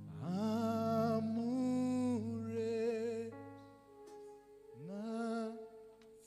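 Worship singing: a solo voice scoops up into long held notes with vibrato over a sustained keyboard chord. Two phrases, with a gap of about a second and a half in the middle where only the keyboard holds.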